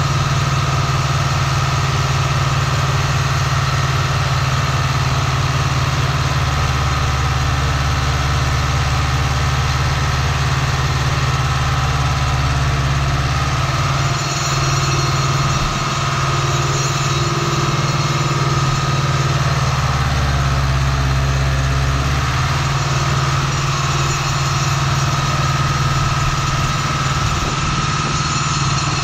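Deutz-Fahr DX 3.65 tractor's 70 hp air-cooled Deutz diesel running steadily, heard from inside the cab while it drives a Pöttinger NovaDisc 265 disc mower, with a steady whine over the engine. Its low drone changes a few times.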